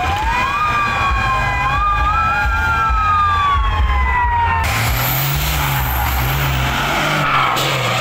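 Several siren-like tones slide up and down for the first half. Then, after a sudden change, a ten-wheeler truck's diesel engine is revved hard through stacked chrome exhaust pipes, its pitch rising and falling, as the truck pulls away.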